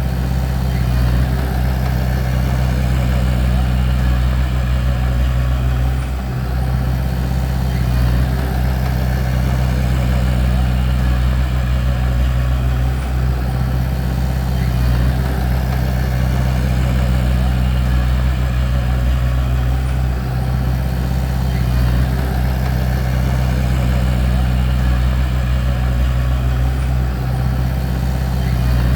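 Bulldozer's diesel engine running steadily with a deep, constant drone.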